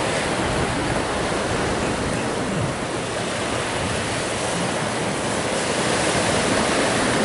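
Ocean surf washing in steadily, swelling a little louder near the end.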